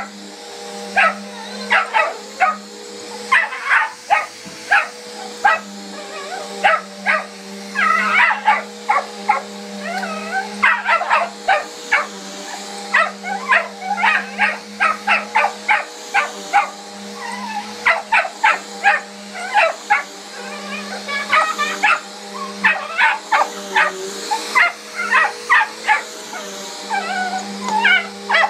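Miniature Australian Shepherd puppy barking and yipping rapidly and repeatedly, several barks a second in long runs, at a running vacuum cleaner whose motor makes a steady hum underneath.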